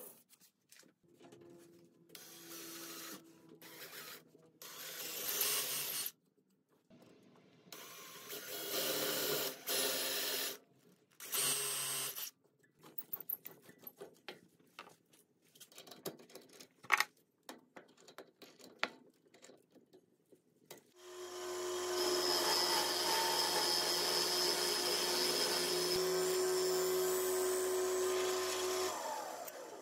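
Wood lathe spinning a walnut blank while a bit in the tailstock drill chuck bores its centre hole: a steady running sound with a high whine and a low hum, lasting about eight seconds in the second half. Before that come short stop-start bursts of machine sound and scattered clicks from the workpiece being mounted in the chuck.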